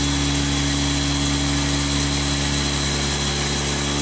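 Electric motor of a battery-powered cotton candy machine running steadily, spinning the floss head with an even hum made of several fixed tones. The motor runs straight off a car battery with no dimmer, so it turns at one fixed speed.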